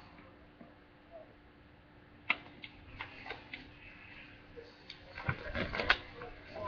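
Sheet of paper being folded and creased by hand: a sharp click about two seconds in, a few scattered ticks, then a cluster of crinkles and taps near the end, over a faint steady hum.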